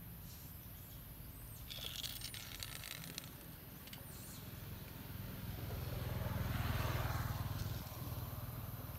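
A motor vehicle's engine passing by off to the side: a low hum that swells to its loudest about six to seven seconds in, then fades. A brief patch of high, scratchy sound comes about two seconds in.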